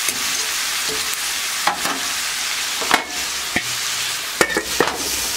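Diced snake gourd and greens sizzling steadily in oil in a skillet over medium heat, with a few sharp metal clinks and scrapes as a slotted spatula stirs against the pan and the lid goes on.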